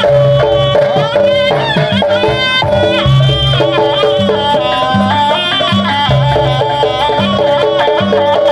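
Jaranan Buto accompaniment music: a wavering lead melody over a steady held tone and a repeating low drum pattern.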